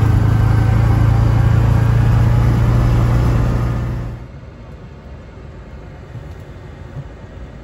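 Yamaha Wolverine R-Spec side-by-side running as it is driven: a steady low rumble that fades down about four seconds in to a quieter, even hiss.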